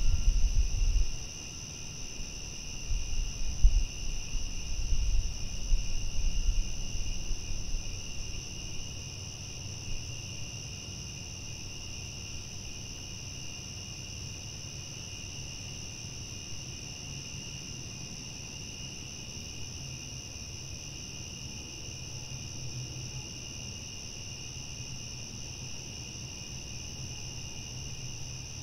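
Crickets chirping at night in an unbroken high trill, with two steady pitches, one higher than the other. Low rumbling gusts come and go during the first several seconds, then die away.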